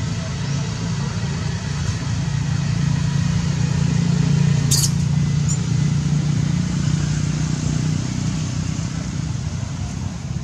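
Low, steady rumble of a running motor vehicle engine, swelling toward the middle and easing off near the end, with one brief high-pitched sound about halfway through.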